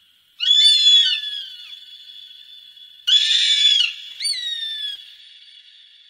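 Osprey calling: three high, screechy calls, the first about half a second in and two more near the middle, each sliding down in pitch and trailing off in an echo.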